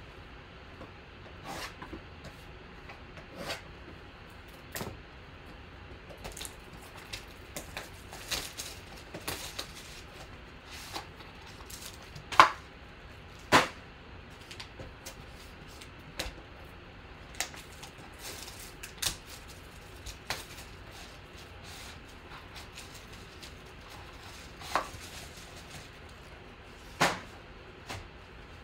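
Cardboard trading-card hobby boxes and a wrapped card pack being handled and opened by hand on a table: scattered light taps, clicks and rustles, with two louder knocks near the middle and another pair near the end.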